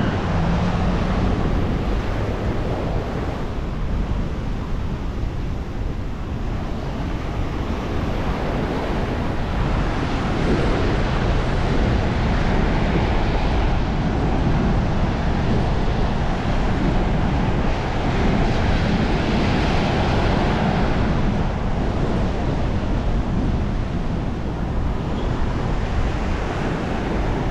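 Sea surf breaking on the beach at high tide, rising and falling as the waves come in, with strong wind buffeting the microphone.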